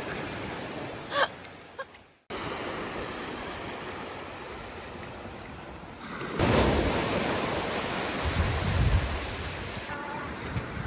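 Sea surf washing steadily, with wind buffeting the microphone. There is a short cut a couple of seconds in, and the sound gets louder from about six seconds, with low gusts of wind rumble.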